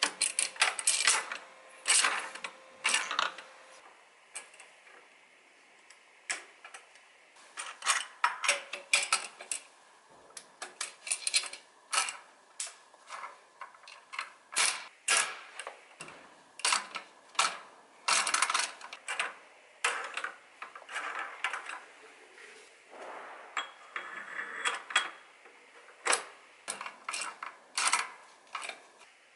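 Sharp metal-on-metal clicks and knocks in quick clusters from a combination drawbar wrench with a spring-loaded hammer as it is worked by hand, the hammer weight snapping against the shaft. Some knocks ring briefly.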